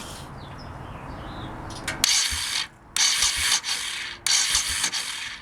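A 1989 Honda VT1100C Shadow Spirit's starter cranking the V-twin engine with the kill switch off, so it turns over without firing. It comes in three loud ratcheting bursts starting about two seconds in. It carries the odd noise from the starter area of the left crankcase that the owner cannot identify and describes as sounding like it is going back on itself.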